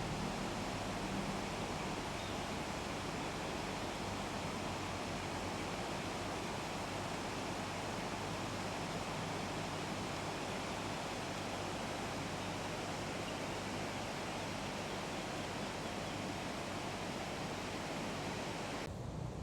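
Steady rush of flowing river water, an even hiss with no distinct events; the upper hiss drops away suddenly just before the end.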